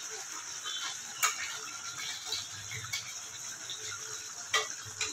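Spatula stirring a thick fish curry in a kadai: soft scraping and small irregular clicks, with a sharp knock of the spatula on the pan about a second in and another near the end.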